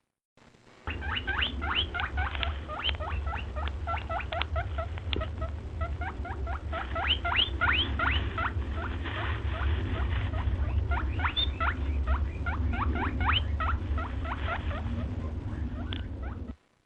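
Rapid, high-pitched squeaks from a small animal, several a second, each rising quickly in pitch, over a steady low rumble.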